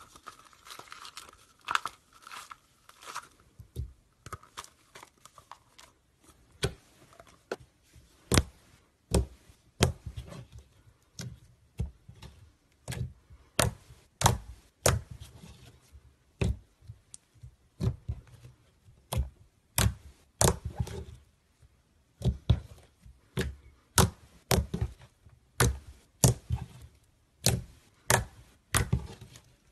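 Clear slime being pressed and poked by fingertips, giving a steady run of sharp wet pops and clicks, about one or two a second. In the first few seconds there is a sticky crackle as the slime is pulled out of a plastic tub.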